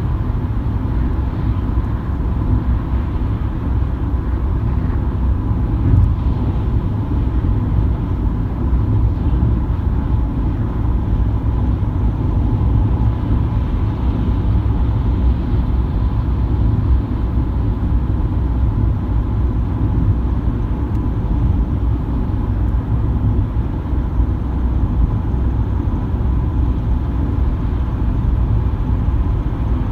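Car cruising at motorway speed heard from inside the cabin: a steady low rumble of tyre and engine noise, with a faint thin steady hum above it.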